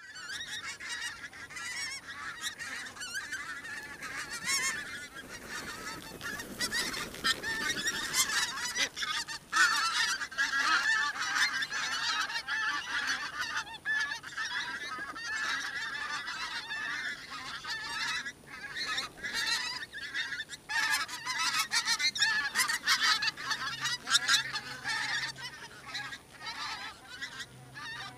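A large flock of wild grey geese calling overhead: a continuous chorus of many overlapping calls, getting louder about nine seconds in.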